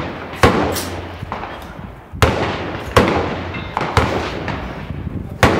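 Gunshots on a shooting range: five sharp reports at irregular intervals, each trailing off in a short echo.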